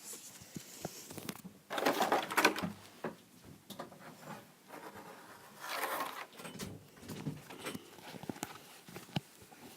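Scattered rustling and handling noises with a few light knocks and clicks, louder for about a second around two seconds in and again around six seconds in.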